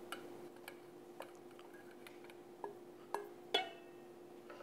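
Wooden spoon scraping butter cubes out of a stainless steel bowl into a saucepan: a few soft knocks, then three louder clinks between about two and a half and three and a half seconds in, the last with a short metallic ring. A faint steady hum runs underneath.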